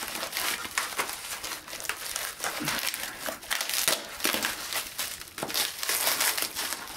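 Plastic wrapping crinkling and tearing as it is pulled and cut off wrapped knives by hand, a dense irregular crackle with no pause.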